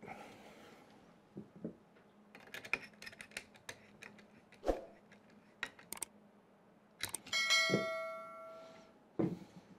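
Clicks and taps of small metal parts and tools on a 3D printer's frame, with a dull knock near the middle, then one clear metallic ring about seven seconds in that fades over about a second.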